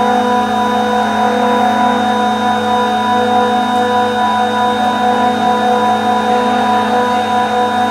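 Industrial refrigeration compressors running, a steady loud drone with a constant hum, several held tones and a thin high whine.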